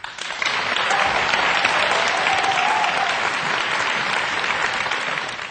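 Audience applause, starting just after the last sung note and holding steady throughout.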